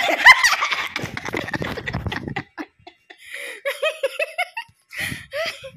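A woman laughing in short bursts of giggles. Rustling and handling noise runs under the laughter for the first couple of seconds, then the laughter comes in short repeated bursts.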